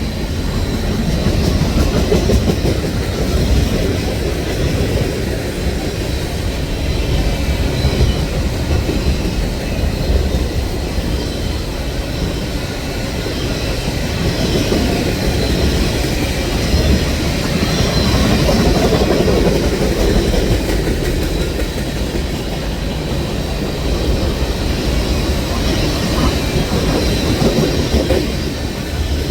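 Train cars rolling past, wheels clattering over the rails with a continuous heavy rumble and a faint high squeal.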